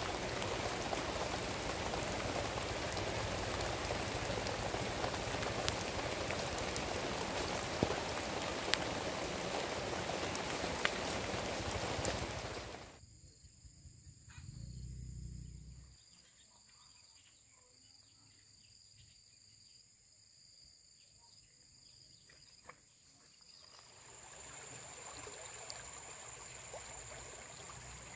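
Steady rushing water noise for about the first half, with a few small ticks in it, cut off abruptly. After that a much quieter stretch carries a steady high-pitched insect drone with scattered faint ticks, and a softer wash of noise comes back near the end.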